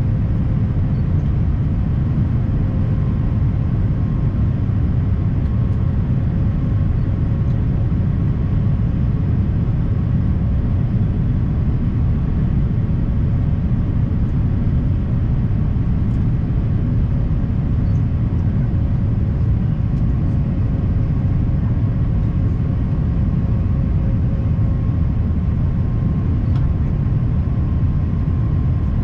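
Steady cabin noise inside an Airbus A350-1000 in flight: an even low rumble of airflow and its Rolls-Royce Trent XWB-97 engines, with a faint steady hum above it.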